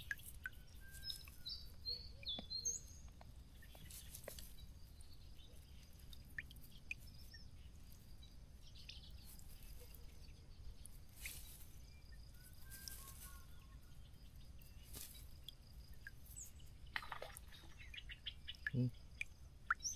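Small birds chirping now and then, high-pitched and mostly in the first few seconds. Soft rustles, clicks and drips come from a wet shrimp trap net being shaken out into a mesh bag.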